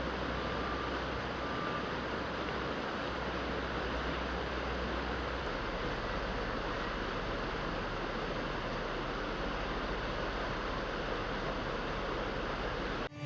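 Steady, even rushing noise, which cuts off abruptly at the very end.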